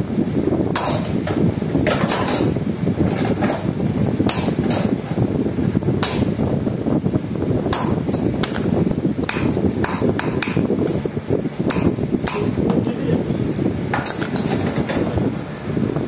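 Hand hammer striking a cold chisel held on a thin iron rod on an iron anvil block, cutting into the rod: sharp metallic blows at an uneven pace, roughly one or two a second. A steady low rumble of background noise runs underneath.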